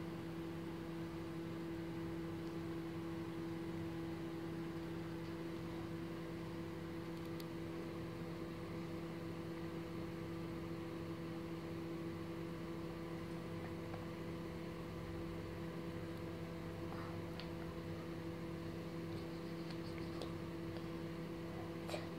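A steady low machine hum over a faint hiss, holding one even pitch throughout, with a few faint clicks near the end.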